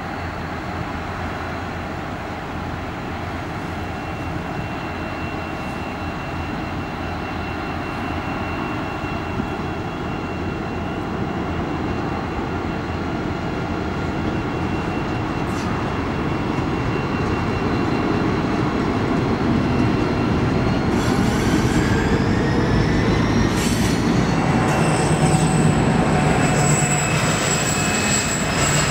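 Pacific National 81 class diesel locomotives hauling a loaded grain train past, their engines running steadily, then the grain wagons rolling by. The sound grows louder in the second half, and a high wheel squeal comes in near the end.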